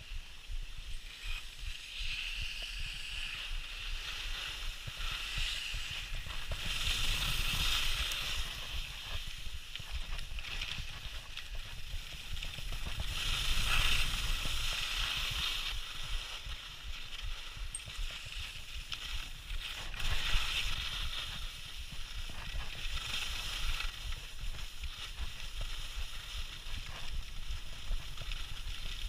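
Skis sliding and scraping over snow, swelling into louder swishes every few seconds as the skier turns, over a steady low rumble of wind on the microphone.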